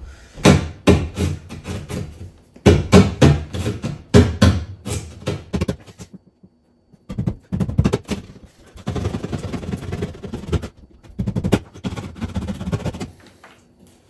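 Drywall being cut by hand to open a hole for an electrical box: bursts of quick strokes and knocks, with a short pause about six seconds in.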